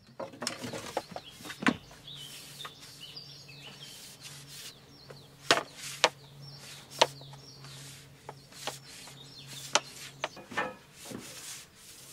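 Flexible plastic plumbing pipe being uncoiled, bent and worked into place: scattered clicks, knocks and rubbing, with a few bird chirps about two seconds in and a low steady hum underneath for most of the time.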